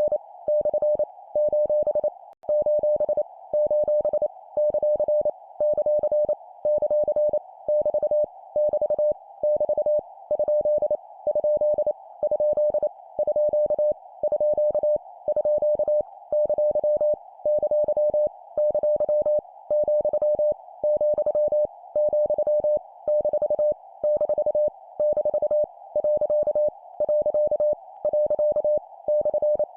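Morse code (CW) sent as a single mid-pitched tone at 25 words per minute: rapid dots and dashes keyed on and off, with a short pause roughly every second between characters. It spells out punctuation marks, each repeated three times, as a copying drill.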